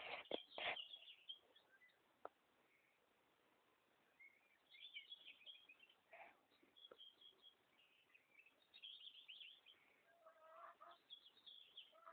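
Faint bird calls in scattered short chirping bursts over near silence, with a few lower calls near the end. A couple of short knocks in the first second are the loudest sounds.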